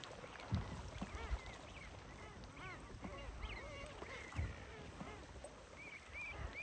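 A flock of seabirds calling on the water: many short, arched cries, several in quick succession near the end. A few low thumps sound underneath, the loudest about half a second in.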